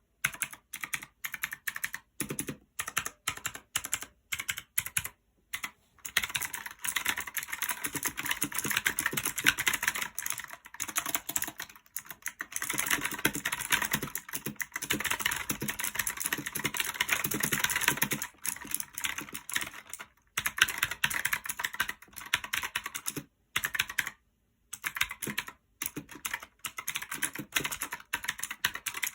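Typing on a One Up G300 mechanical keyboard with Outemu blue clicky switches: a few separate keystrokes at first, then fast continuous typing from about six seconds in, with brief pauses.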